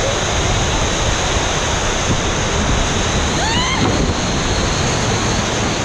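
Water rushing under a raft sliding down a ProSlide Tornado 60 water slide tube: a loud, steady rush with wind on the microphone. About three and a half seconds in, a rider lets out a short rising squeal.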